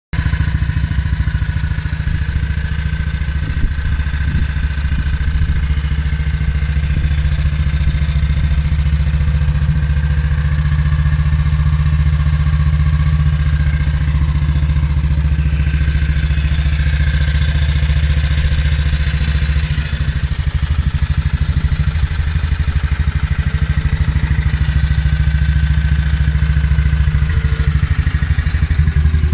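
1952 Ariel Colt 200cc single-cylinder four-stroke engine idling steadily with an even, rapid exhaust beat.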